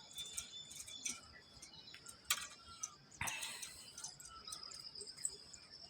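Faint outdoor morning ambience: scattered bird chirps over a steady high insect trill, with a brief knock about three seconds in.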